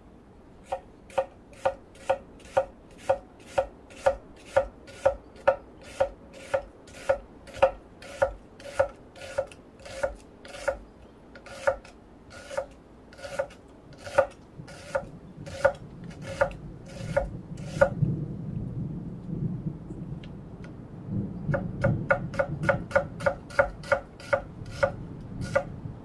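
Kitchen knife slicing red onion into thin strips on an end-grain wooden cutting board: each stroke ends in a sharp knock of the blade on the board, about two a second. After a few seconds of low rustling, the slicing resumes a little faster near the end.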